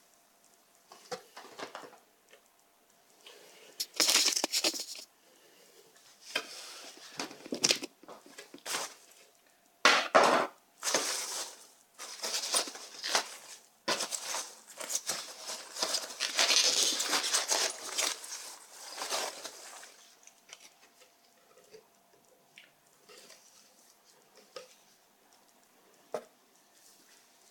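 Hands rummaging through polystyrene packing peanuts in a cardboard box, with packaged items being lifted out: irregular rustling and crinkling. It is busiest in the middle and dies down to occasional light handling near the end.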